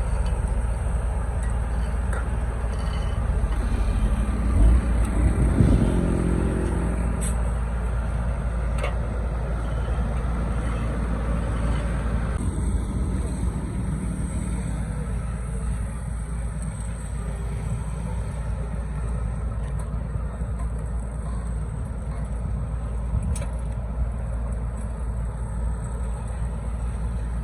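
Steady rumble of vehicle or heavy machinery engines, with a brief rise about five seconds in.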